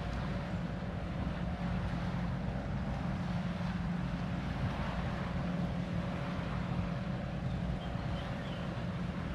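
Steady low mechanical hum, like a motor running at an even speed, with wind rumbling on the microphone.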